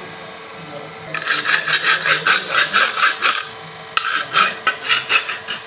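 Hand file scraping in quick back-and-forth strokes on a cut aluminium box section, taking off the burrs left by cutting and drilling. The strokes start about a second in and come in two runs, with a short break about three and a half seconds in.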